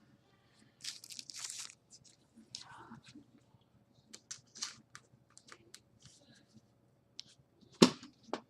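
Trading cards and plastic card sleeves being handled: short, scattered rustles, scrapes and clicks, with one sharper click near the end.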